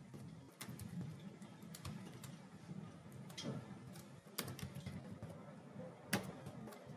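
Computer keyboard typing: faint, irregular keystrokes, with a sharper click about six seconds in.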